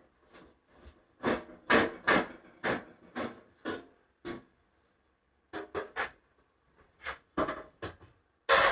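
Cardboard packing being handled and broken down: a run of short crunches and knocks, with a pause about halfway through and a loud, dense burst of crunching near the end.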